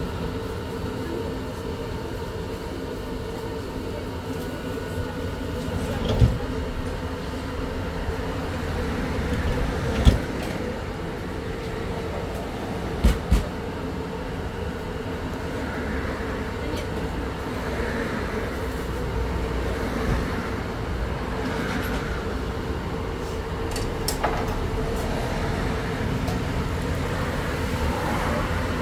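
Steady mechanical hum with a low rumble, broken by a few sharp knocks, two of them close together.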